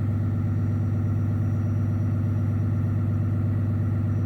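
Cummins engine idling steadily, with an even low hum.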